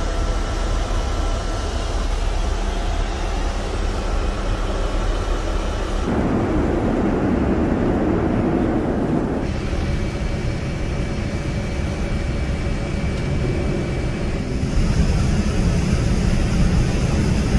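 Steady cabin noise inside a Boeing 787-9 Dreamliner airliner: the jet engines and rushing air heard from a passenger seat. The sound shifts in tone abruptly about six, nine and fifteen seconds in.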